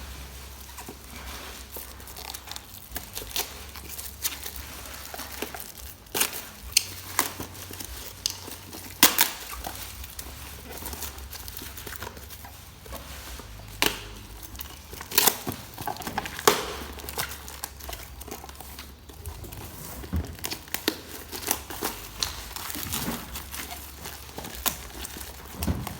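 Packaging being unwrapped: irregular crinkling and tearing, with many sharp crackles.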